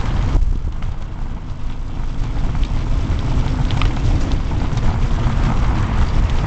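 Wind buffeting the microphone of a moving bicycle, a heavy continuous low rumble, with tyre noise on the paved path and scattered small clicks and rattles.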